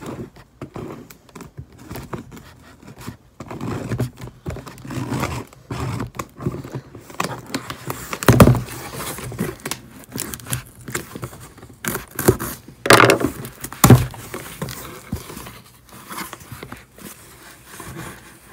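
A cardboard shipping box being opened: a blade cutting through the packing tape, then the flaps pulled open with scraping and crinkling. Several louder sudden sounds come about halfway through and again a little later.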